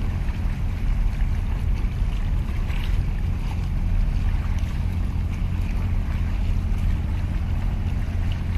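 Wind buffeting the microphone in a steady low rumble, with sea waves washing against the concrete tetrapods of a breakwater.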